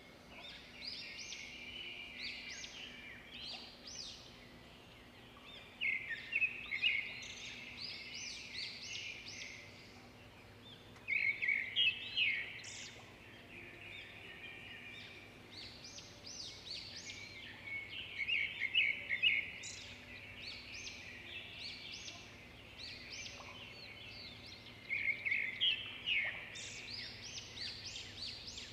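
Birds chirping in quick bouts of short high notes, one cluster every few seconds with quieter gaps between.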